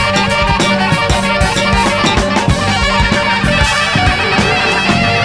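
Rock music: guitar and drums playing a steady beat.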